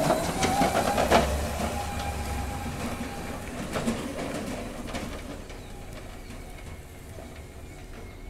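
Home-built electric lawn tractor pulling away over bumpy ground: a short electric-motor whine with rumbling, rattles and knocks from the machine, fading as it drives off.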